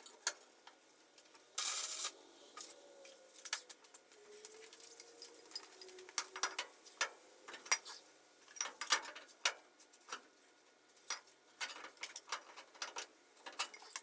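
Faint, scattered light clicks and taps of metal on metal, with a short hiss about two seconds in.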